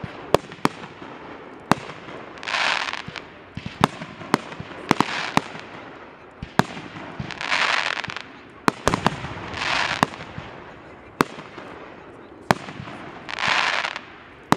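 Aerial fireworks going off: many sharp bangs at irregular intervals, with about six hissing, crackling rushes of about a second each between them.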